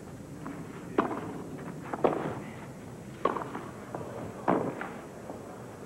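Tennis ball struck back and forth by rackets in a clay-court baseline rally: four sharp hits about a second apart over steady background noise.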